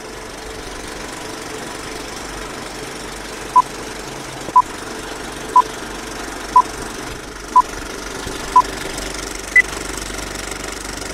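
Film-leader countdown sound effect: six short beeps, one a second, then a single higher beep, over a steady rattling film-projector noise.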